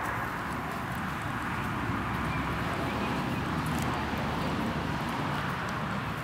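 Dartmoor pony foal cropping short grass, with a few faint tearing clicks, over a steady rushing noise that could be wind.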